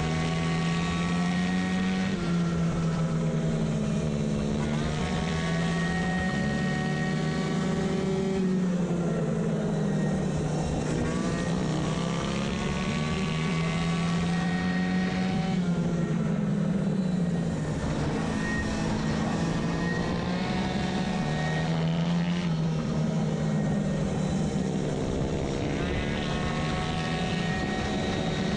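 Racing moped's two-stroke engine with a variator, running hard at high revs at a near-steady pitch. It drops off briefly about five times as the throttle is eased for corners, then climbs back up.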